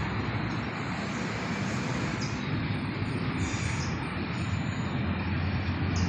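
Steady low outdoor rumble, like distant traffic, with a few short, high bird chirps scattered through it.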